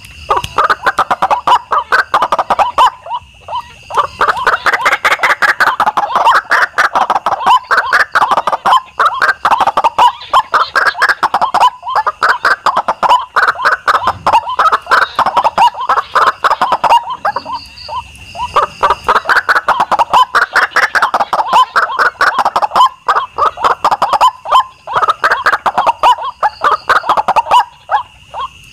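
White-breasted waterhen (ruak-ruak) calls: loud, rapid, repeated croaking notes in long runs, broken by short pauses a few times.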